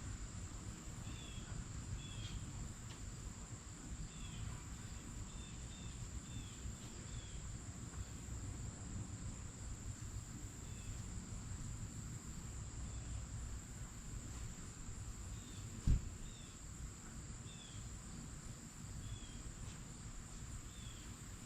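Faint outdoor ambience: a steady high-pitched insect trill with scattered short chirps over a low rumble, and a single soft thump about 16 seconds in.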